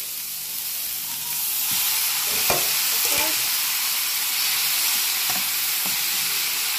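Diced peppers and onions sizzling in a non-stick frying pan. The sizzle grows louder about a second and a half in, with a sharp knock a second later as the noodles go in. Then a wooden spatula stirs them, with a few lighter knocks against the pan.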